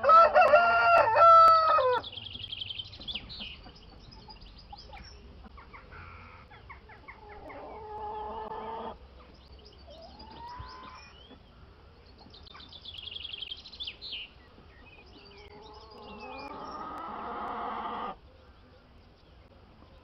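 A rooster crows loudly for about two seconds. Quieter clucking and bird chirps follow, with another louder stretch of calls near the end that cuts off suddenly.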